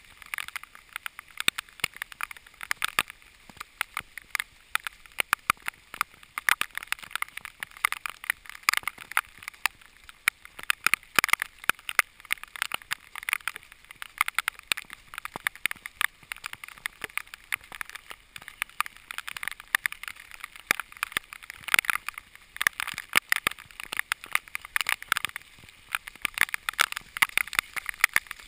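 Heavy rain, with drops striking the camera's housing close up as a dense, irregular patter of sharp ticks over a faint hiss of rainfall.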